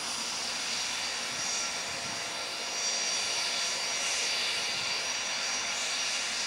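Hawker 800XP business jet taxiing, its twin Honeywell TFE731 turbofans running at taxi power with a steady high whine.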